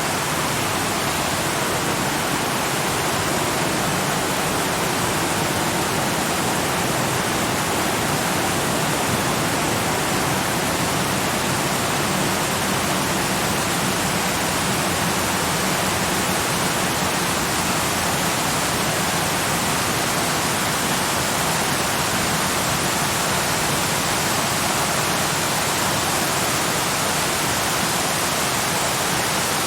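Waterfall: a steady, unbroken rush of falling water, even from low to high pitch.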